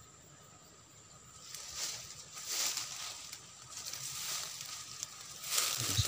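Rustling of tall grass and leaves being pushed through, starting about a second and a half in and coming in several louder swishes.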